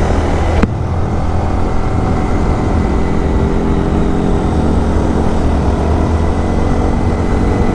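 Honda Monkey 125's single-cylinder engine running at a steady cruise while riding, with low wind rumble on the microphone.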